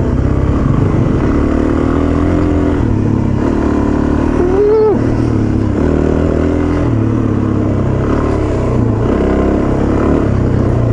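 Suzuki DR-Z400 single-cylinder four-stroke engine running while being ridden on a dirt trail, its pitch stepping up and down with throttle and gear changes, over wind rush on the rider's camera microphone.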